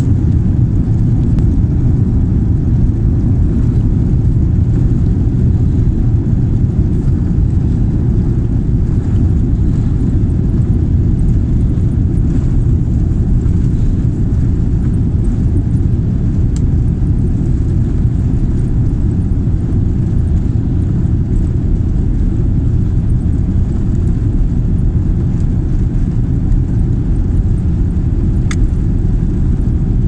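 Steady low rumble inside an airliner cabin as the jet rolls along the runway: engine noise and the wheels on the pavement, heard through the fuselage.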